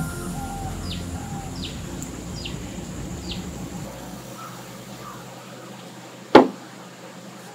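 A bird giving a short falling chirp about five times in a row as the tail of background music fades out; about six seconds in, a single sharp knock.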